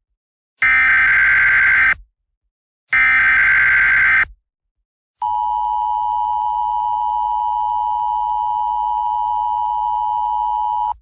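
Emergency Alert System broadcast tones: two buzzing bursts of digital header data, each just over a second long, then, after a short gap, the steady two-tone attention signal, held for about six seconds.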